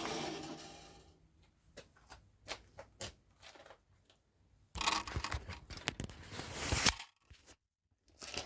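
A power tool's motor winding down and falling quiet in the first second. Then come scattered light clicks and knocks, and a stretch of scraping, rustling handling noise of about two seconds.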